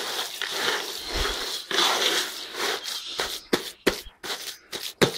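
Gritty scraping and rustling of a damp shell-grit and eggshell mix being worked by hand in a bucket. In the second half comes a quick run of sharp clicks and knocks.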